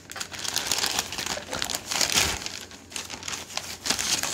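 Thin plastic shopping bag crinkling and rustling as it is handled and a Blu-ray case is pulled out of it, in several bursts, loudest about two seconds in.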